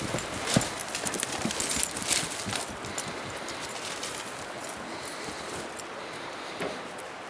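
Footsteps crunching through dry twigs and brush on a steep forest bank, with irregular snaps and crackles that are busiest in the first three seconds. After that the crackles thin out over a steady low rush of river water.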